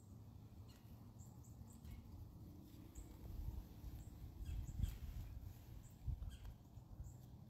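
Quiet woodland ambience: faint, short, very high-pitched chirps from small birds or animals come every second or so over a low rumble. There is a soft thump about five seconds in and another about six.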